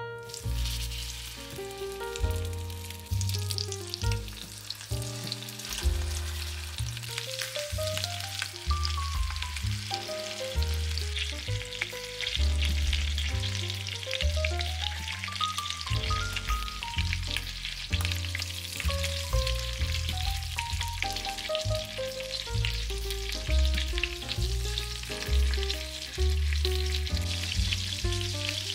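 Food frying in a hot pan: a sizzle with fine crackling that starts suddenly and carries on steadily, over background music with a melody and bass line.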